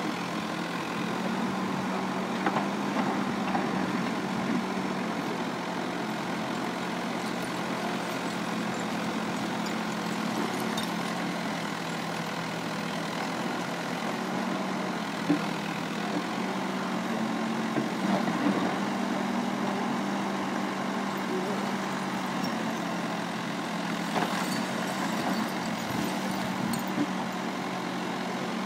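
Diesel engine of an L&T Case backhoe loader running steadily while it digs, with a few sharp knocks scattered through.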